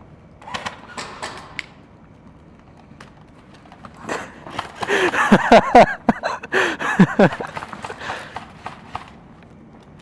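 Footsteps, knocks and sharp clicks of airsoft players moving through a building: a few clicks about half a second in, then a dense flurry from about four seconds in, with short falling-pitch vocal sounds among them, loudest near the middle.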